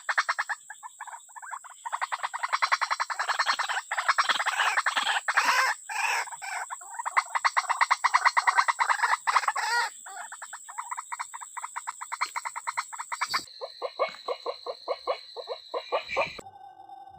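Rapidly pulsed trilling animal calls, many pulses a second, over a steady high-pitched whine; the sound changes abruptly twice near the end.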